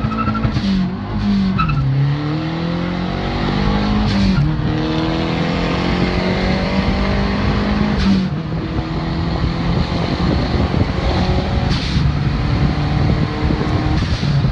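Car engine accelerating hard through the gears: its pitch climbs through each gear and drops back at each upshift, about four times. The run is made to hear the turbocharger spool.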